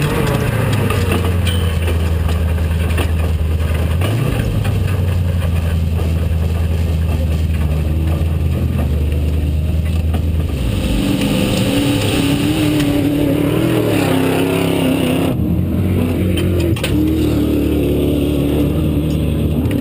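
Off-road desert race truck's engine running hard at speed, heard onboard with a constant noisy rush from wind and terrain. About halfway through the engine note changes, moving to a higher, wavering pitch.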